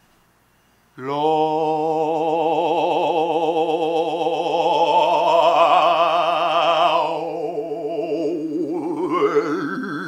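A man singing one long gospel-style held note with a wide vibrato, starting about a second in. Near the end the vowel changes and the pitch slides upward, a big-finale melisma.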